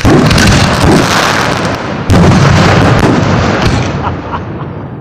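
Aerial fireworks bursting overhead: a loud bang right at the start and another about two seconds in, each followed by dense crackling that fades off toward the end.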